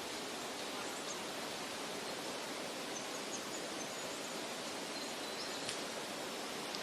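Steady, even rushing noise with a few faint high chirps about three and five and a half seconds in.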